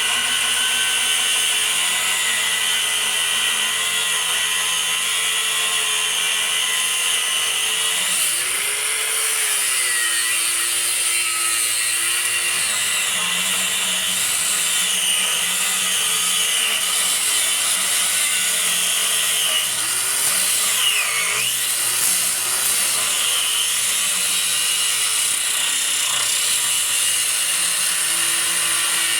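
A power cutting tool cutting steadily through the steel frame rail of a van, the frame being shortened; the cutting pitch wavers with the load.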